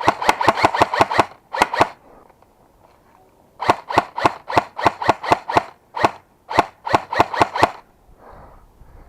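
Airsoft gun firing close by: rapid sharp shots, about seven or eight a second, in several bursts with short pauses between them.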